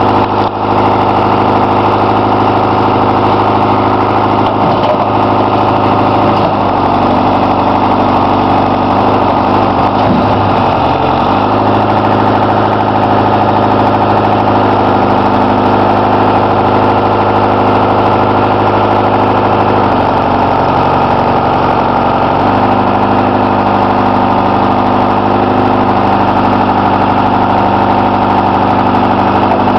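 Engine of a wheeled forestry forwarder with a hydraulic grapple crane running steadily under load. Its note dips and recovers a few times as the boom and grapple are worked.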